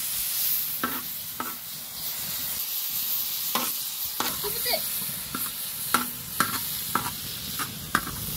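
Diced tomatoes and vegetables sizzling in a large shallow metal pan. A slotted metal spatula scrapes and taps against the pan as they are stirred, giving about ten sharp clicks over the steady hiss.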